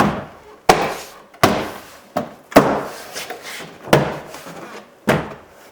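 A series of about seven sharp thumps at uneven spacing as the plastic interior door trim panel is struck into place on the door. The blows snap its retaining clips home.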